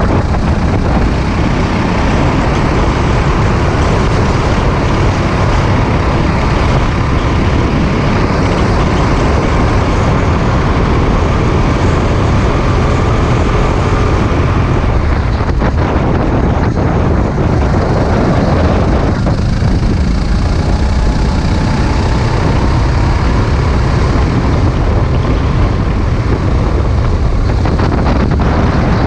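Sodi RT8 rental kart's engine running hard at racing speed, heard close up with heavy wind rush over the microphone. The engine note eases off briefly twice in the middle, as the driver lifts for corners, then picks up again.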